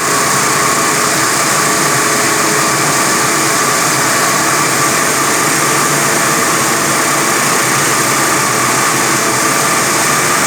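45 kW diamond wire saw running steadily while cutting reinforced concrete, a loud even hiss with a steady whine near 1 kHz.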